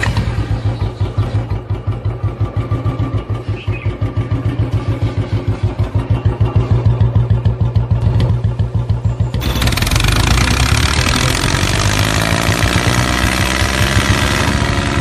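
Engine running with a steady low chugging pulse. About nine seconds in it switches abruptly to a louder, hissier running sound whose pitch rises and falls, like revving.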